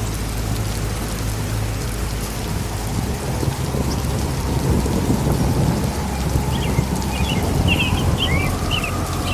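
Steady rain with low, rolling thunder rumbling throughout. A cluster of short high chirps comes in over the last few seconds.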